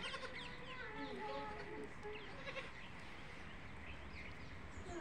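Young goat kids bleating, several short high calls.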